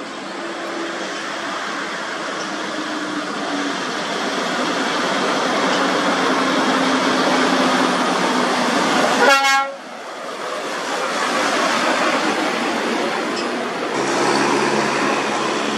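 A MAN TGS tractor unit hauling an excavator on a low trailer, its diesel engine and tyres growing louder as it approaches, with a short horn blast about nine seconds in. Near the end the sound changes to a steadier engine noise of another truck.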